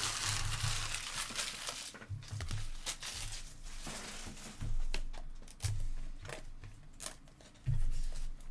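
Trading-card pack wrapper crinkling and tearing open, followed by a series of light clicks and knocks from handling.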